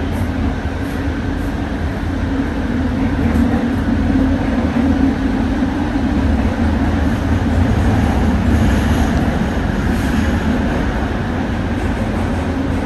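Interior of a Bombardier ART200 metro car running at speed: a steady loud rumble of the wheels on the rails with a steady low hum underneath, swelling slightly through the middle.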